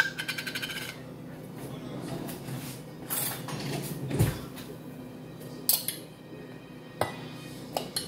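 Handling of a jar of flour over a glass mixing bowl. A sharp click at the start is followed by about a second of quick ticking, like a screw lid being twisted off. Several separate knocks and clatters follow over a steady low hum.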